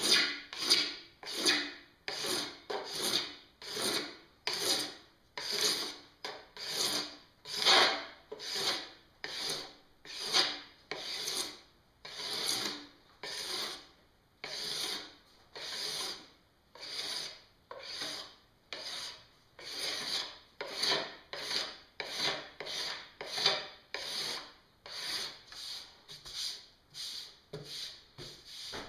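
Metal scraper being drawn in repeated strokes, about one and a half a second, across a snowboard base, shaving down hardened P-Tex filler to level the repaired gouges.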